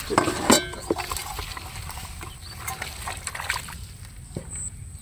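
Water slopping out of a tipped metal bowl onto wet, straw-covered ground, loudest in the first half second. Quieter scattered splashes and rustles follow.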